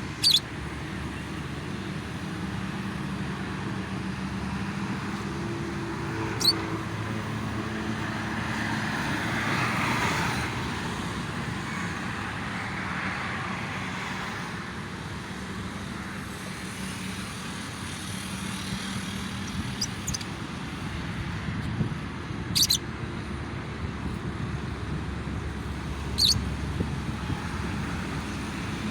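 Steady road traffic noise from passing vehicles, swelling as one goes by about ten seconds in. A few short, sharp high chirps, typical of lovebirds, stand out over it.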